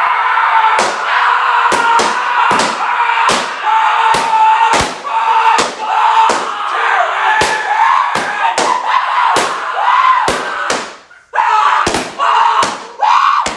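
Cartoon beating sound effects: loud slams and whacks repeating about once every three-quarters of a second, over a continuous wavering cry, with a short break about eleven seconds in.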